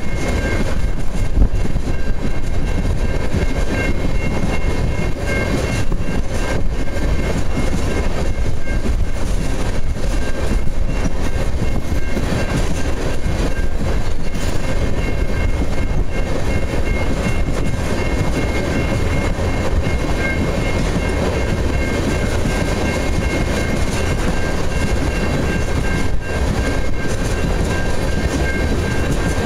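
Ethanol tank cars of a freight train rolling past: a loud, steady rumble of steel wheels on rail, with a few faint, steady high-pitched whines above it.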